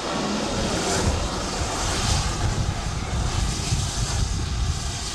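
Steady, loud mechanical rumble and roar, like a large engine or vehicle running, with no break.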